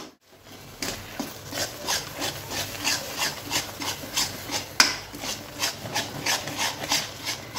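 A metal ladle scraping and stirring thick cooked gongura paste against the side and bottom of a metal kadai, in steady rhythmic strokes a little under three a second.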